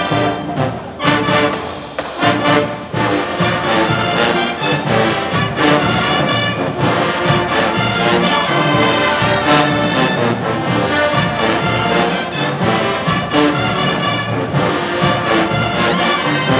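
Marching band playing at full volume: a brass section of trumpets and trombones carrying the tune over a steady beat of drumline hits.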